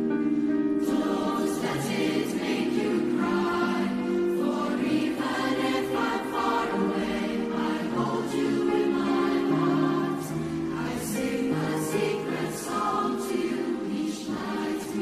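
Mixed youth choir of boys and girls singing in parts, held chords with crisp sibilant consonants landing together several times.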